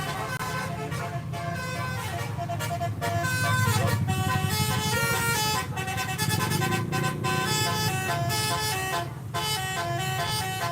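Bus 'telolet' multi-tone horn playing a tune of short held notes that step up and down in pitch, over the low rumble of the bus engine.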